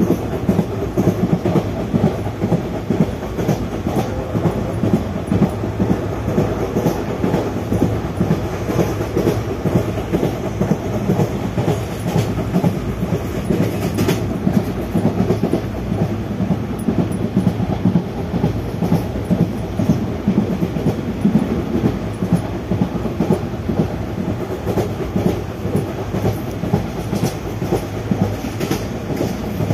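Indian Railways ICF coaches running at speed: a steady rumble of steel wheels on rail, broken by irregular clattering knocks as the wheels pass over rail joints. One sharp click stands out about halfway through.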